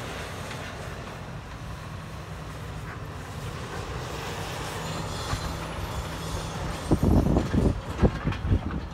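Demolition excavators' diesel engines running steadily. Wind buffets the microphone in loud, uneven gusts from about seven seconds in.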